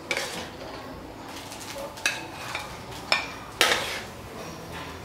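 A utensil scraping and clanking against a steel wok as stir-fried pickled bamboo shoots and beef are dished out onto a plate: about five sharp metallic clanks and scrapes.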